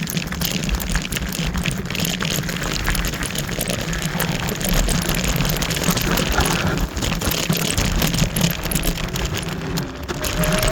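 Wind rushing over the microphone with rattling and rumble as a Kaabo Wolf Warrior electric scooter is ridden over rough, mixed terrain. A steady whine comes in near the end.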